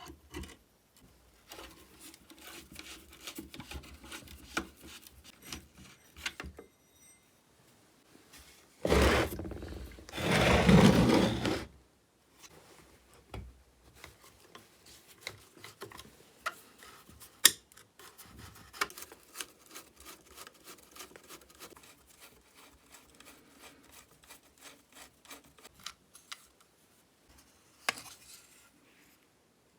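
Small clicks, taps and scraping of hand tools and metal parts handled while a chainsaw is being taken apart, with two loud bursts of noise about nine and eleven seconds in.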